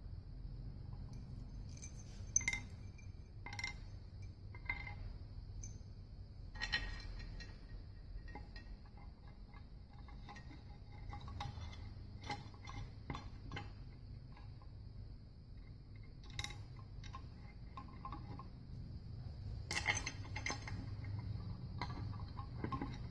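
Small metal hardware (bolts, nuts and washers) clinking and knocking against a wooden block as it is handled: scattered light clicks in several short clusters, over a steady low hum.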